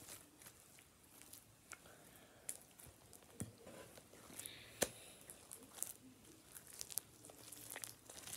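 Blue slime packed with white foam beads being squeezed and kneaded in the hands: faint, scattered crackles and clicks as the beads are pressed, with one sharper click a little under five seconds in.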